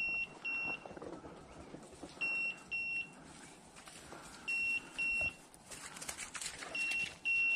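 Beeper collar on a German shorthaired pointer sounding a high double beep about every two and a quarter seconds, four pairs in all: the point-mode signal that the dog is standing on point.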